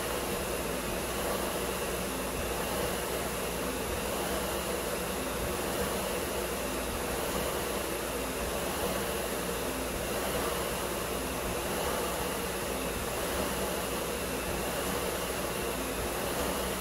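Concept2 SkiErg's air-resistance flywheel fan spinning under repeated pulls: a steady whir of rushing air.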